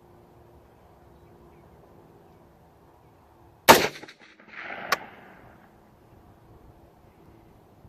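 A single AR-15 rifle shot firing a hand-loaded round, with a short echo. About a second later comes a softer rustle ending in a sharp click.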